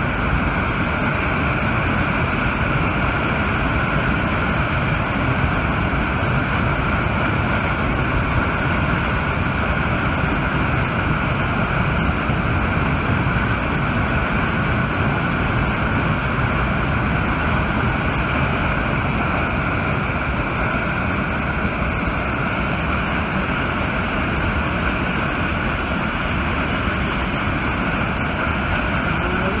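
Loud, steady rush of a high-pressure water jet blasting from a dam's outlet pipe and crashing into the river below.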